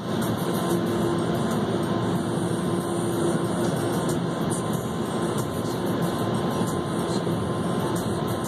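Automatic car wash running, heard from inside the car: a steady rush of water and foam over the glass with a steady hum underneath.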